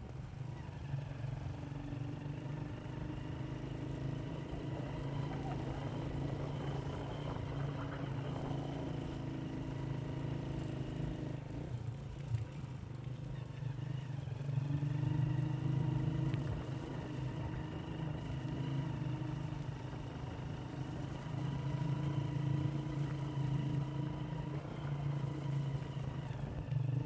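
A vehicle's engine running steadily while driving along a rough dirt track, its note swelling a little twice as the throttle opens.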